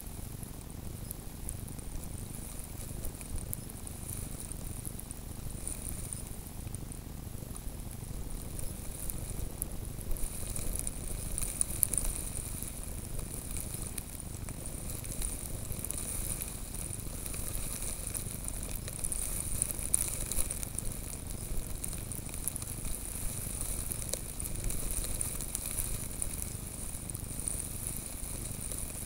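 Wind on the microphone with a steady high hiss and fine crackling ticks of blown snow grains striking a camera set in the snow, over a low rumble.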